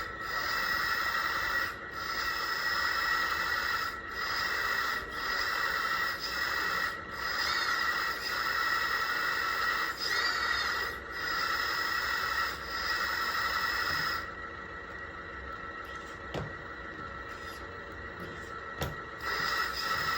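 Hydraulic pump and valves of an RC backhoe loader model running with a steady whine, broken by short dips every second or two and two brief squeals. About two-thirds of the way through it drops away to a quieter hiss with a few faint clicks.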